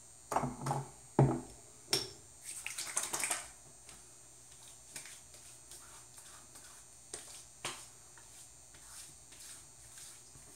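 A few sharp knocks and clunks in the first two seconds, the loudest about a second in, then hands splashing and patting witch hazel onto freshly shaved skin as soft taps that fade to faint pats.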